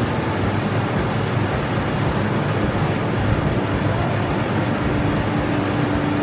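Steady rushing background noise with no clear events, with a faint steady hum joining about four seconds in.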